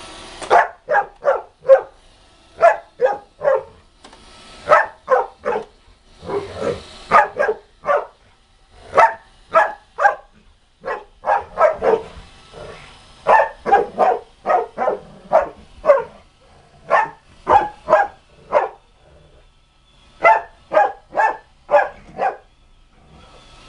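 Rottweiler barking repeatedly at the robot vacuum, in quick runs of two to four deep barks with short pauses between.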